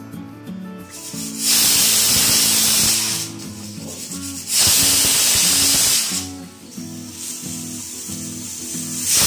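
Aluminium stovetop pressure cooker whistling on the gas flame: steam jets out past the weight valve in loud hissing bursts of about a second and a half, twice, with a third starting near the end. Each burst is the cooker venting as it reaches full pressure. Background music plays under it.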